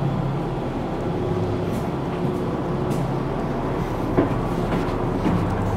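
Steady low hum of a navy ship's interior machinery and ventilation. A few short knocks from about four seconds in, footsteps on steel ladder treads.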